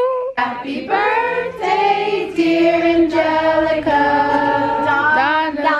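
A group of voices singing together, holding drawn-out notes in harmony; the singing begins right after a short break at the start.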